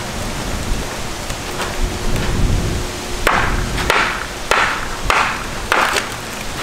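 Hammer blows struck overhead at the top of a stone wall: a few faint knocks, then a steady run of six sharp strikes about two-thirds of a second apart from about halfway through, over wind rumble on the microphone.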